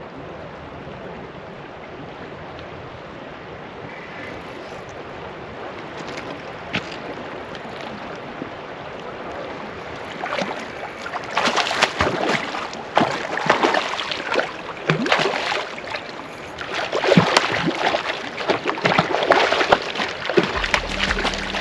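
River water running steadily. From about ten seconds in, loud irregular splashing comes and goes until the end.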